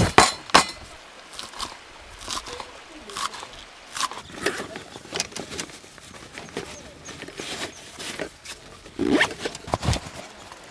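Irregular clicks, knocks and scrapes from gear being handled, loudest in two knocks right at the start and a cluster about nine seconds in.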